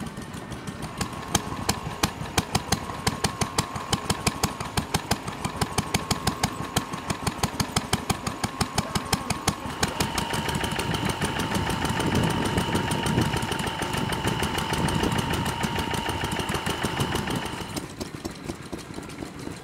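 Vintage stationary engines running in turn: a rapid, even beat of sharp exhaust strokes first. About ten seconds in it switches to a smoother, steadier running with a whine, plausibly the 1949 Wolseley WD8 petrol engine. Near the end it returns to an even beat.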